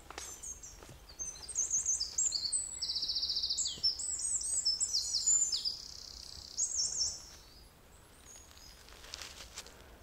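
Woodland songbird singing one long, high-pitched song of quick notes with a fast trill in the middle, from about a second in until about seven seconds in. After that only faint background sound remains.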